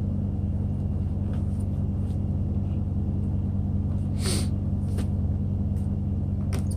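A steady low hum, with a few short scrapes and knocks as a plastic Salter 9063 digital bathroom scale is turned over in the hands, the clearest about four seconds in.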